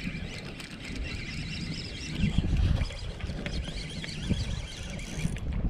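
Spinning reel being cranked while a hooked fish is fought, with a faint whir and a few small clicks over a low rumble of wind and handling on the microphone.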